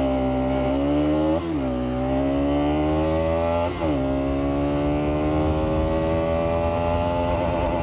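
Bajaj Pulsar NS200's single-cylinder engine accelerating hard uphill through an aftermarket exhaust with its dB killer fitted. The engine note climbs, drops sharply at two gear changes about a second and a half and four seconds in, then rises slowly again under load.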